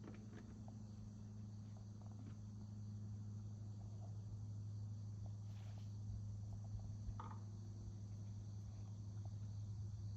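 Faint outdoor ambience of insects chirring steadily, high-pitched, over a constant low hum, with a few soft clicks scattered through.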